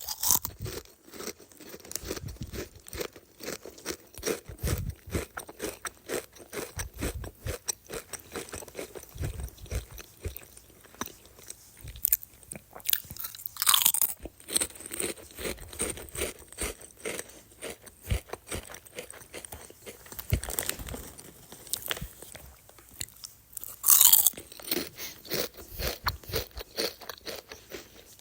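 Crunchy potato chips being chewed: a dense, irregular run of crisp crunches, with a couple of louder, sharper crunches about 14 and 24 seconds in.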